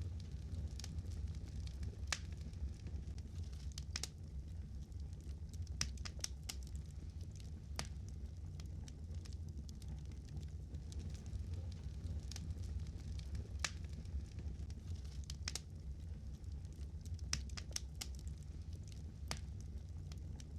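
Fire crackling: irregular sharp pops and snaps scattered over a steady low rumble.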